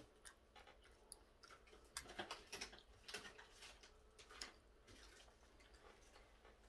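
Faint, scattered clicks and taps of a fork against a styrofoam takeout container as a dumpling is picked apart and lifted, with a cluster of them about two to three seconds in.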